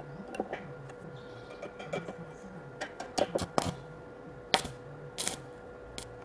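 Stick-welding electrode striking and sputtering against square steel tubing: irregular sharp crackles and short bursts as the arc catches and breaks while a joint is tacked, the loudest about four and a half seconds in.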